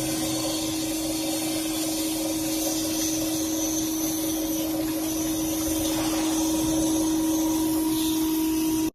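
CNC gear hobbing machine running: a steady mechanical hum with one constant tone over a hiss, which cuts off abruptly near the end.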